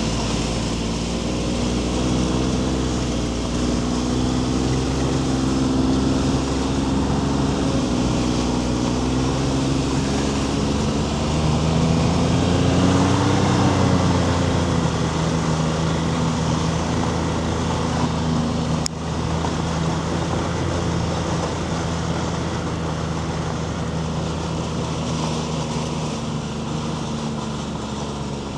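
Snowmobile engine running steadily, its pitch rising and then falling back about halfway through, with a sharp click near two-thirds of the way in.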